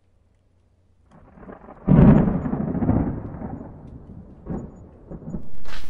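Cinematic intro sound effect. A rumble swells up, then a sudden deep boom about two seconds in rumbles away over a few seconds, followed by a couple of fainter hits near the end.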